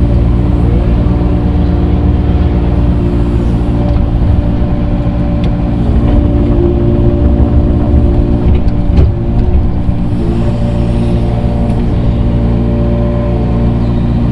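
Engine of a small excavator running steadily under load, with a few faint clanks about midway.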